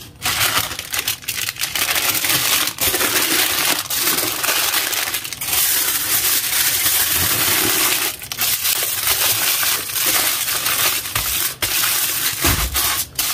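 Baking paper and then aluminium foil being folded and crumpled around a raw seasoned roast: a loud, steady crinkling with many sharp crackles. There is a dull low bump near the end.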